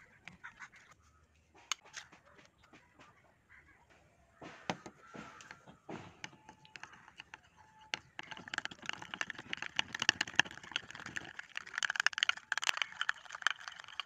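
A foil shampoo sachet crinkling as it is squeezed, then, about halfway through, a plastic spoon stirring and scraping a thick, grainy slime mixture in a glass bowl: a dense run of quick clicks and scrapes.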